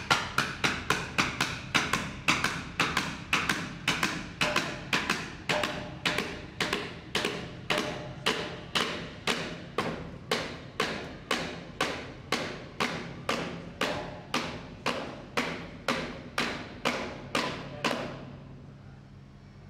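Small hammer striking a metal fitting under a ship's hull again and again at an even pace, about three blows a second at first, slowing to about two a second, then stopping shortly before the end.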